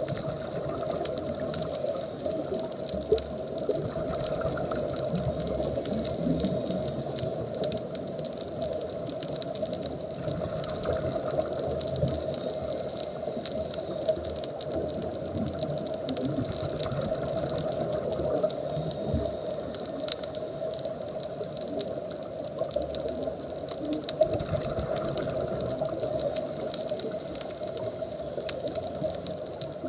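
Steady, muffled underwater noise picked up through an action camera's waterproof housing, with fine scattered clicks and crackles and a few sharper ticks.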